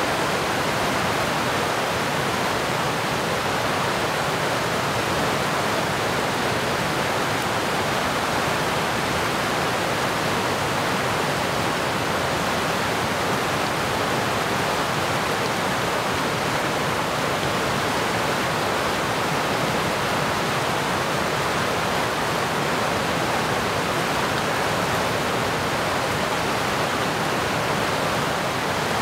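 Mountain creek rushing over rocks in whitewater rapids: a steady, loud rush of water.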